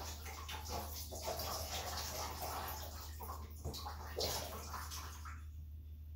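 Water splashing and sloshing in a bathtub as a doll's head and hair are dunked and swished through it. The splashing dies down about five seconds in as the doll is lifted out.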